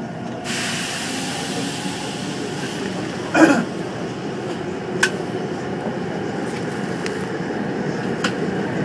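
Korail 351000-series subway train running through a tunnel, heard from inside the car: a steady rumble of wheels on rail, with a hiss of higher noise joining about half a second in. A brief loud sound cuts in once, about three and a half seconds in, and a faint click follows a little later.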